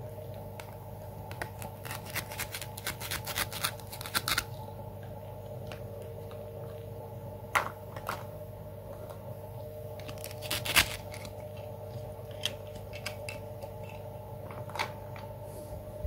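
Plastic toy food pieces clicking and clattering as they are picked up and handled by hand: a quick run of clicks early on, then single sharp clicks and a second short cluster about ten seconds in. A steady low hum runs underneath.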